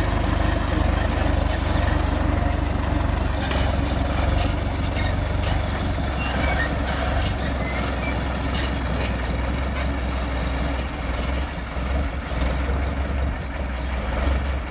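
Engine of a heavy road-work vehicle running steadily, with a deep, even low hum.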